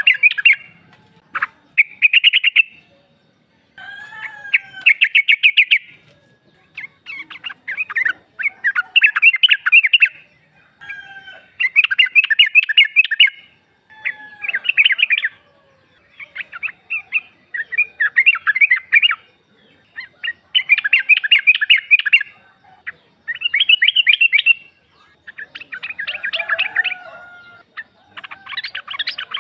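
Female yellow-vented bulbul (trucuk) calling: a series of short bursts of fast chattering notes, each a second or two long, repeated with brief pauses. This is the call used as a lure to set male bulbuls singing back.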